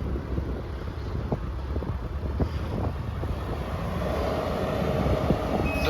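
Wind buffeting the microphone outdoors as a low, steady rumble, with a few light knocks.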